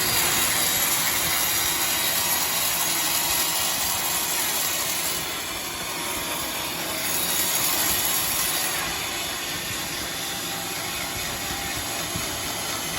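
Sawmill saw running through wood: a steady, dense rush of machine noise that swells for the first five seconds and again around seven to nine seconds in.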